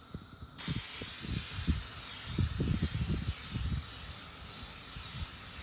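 Aerosol spray can of clear coat spraying onto a sanded headlight lens: a steady hiss that starts about half a second in and keeps going.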